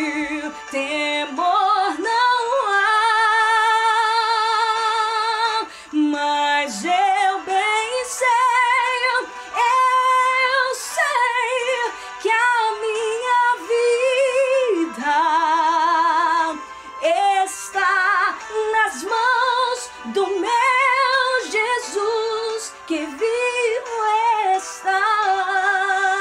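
A woman singing a gospel hymn, holding long notes with wide vibrato.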